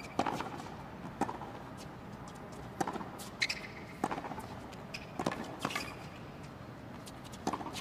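Tennis rally on a hard court: a string of sharp racket strikes and ball bounces, roughly one a second at irregular intervals.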